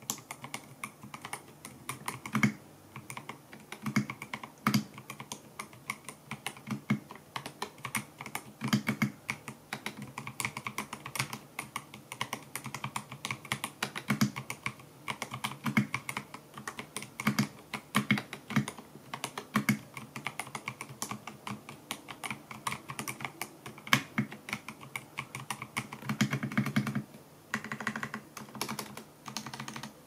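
Typing on a Machenike K500F-B81 gasket-mount mechanical keyboard with GR-Ice linear switches and transparent keycaps: a quick, uneven run of key clacks with a few short pauses.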